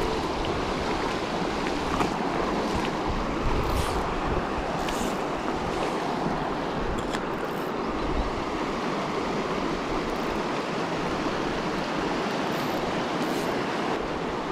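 Steady rush of a shallow, stony river running over rocks, with gusty wind rumbling on the microphone.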